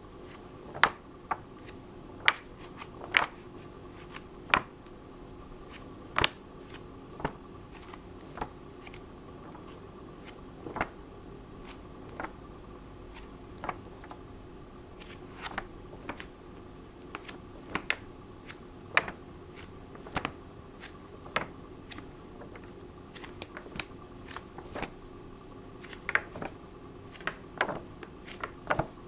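Pages of an old hardback book being turned one after another, each turn a short crisp paper flick, irregularly, roughly one every second or two. A steady hum runs underneath.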